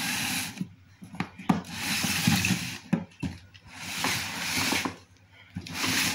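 Handling noise: four bursts of rubbing and scraping, each about a second long, with a few light knocks in between.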